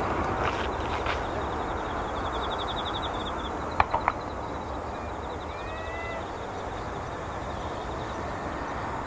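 Twin-engine jet airliner at takeoff thrust, its engine roar steady and slowly fading as it rolls away and lifts off. Birds chirp over it, with a fast ticking trill early on and three sharp clicks about four seconds in.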